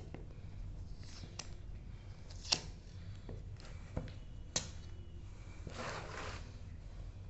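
Hands working on a sealed phone box to unseal it: a few sharp clicks and taps, then a brief rustle of packaging about six seconds in, over a low room hum.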